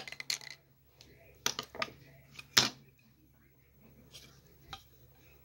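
Plastic Lego bricks clicking and clacking as they are handled and set down on a wooden table: a quick run of small clicks, then a few sharper clacks, the loudest about two and a half seconds in.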